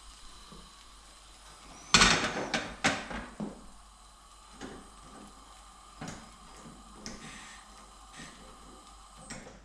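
A frying pan is set down onto the gas range's pan supports with a loud clatter about two seconds in, followed by a few quick knocks as it settles. Lighter clicks and knocks follow about once a second.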